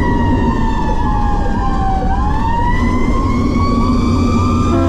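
Fire engine siren wailing: the tone falls slowly for about two seconds, then rises again, over the low rumble of the moving truck. A multi-tone air horn cuts in right at the end.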